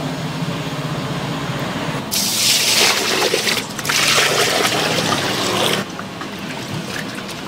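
A stream of water pouring and splashing into a plastic basin of rice, starting about two seconds in, with a brief break in the middle, then stopping; afterwards softer splashing as a hand swishes the rice in the water to wash it. A steady low hum sits underneath at the start.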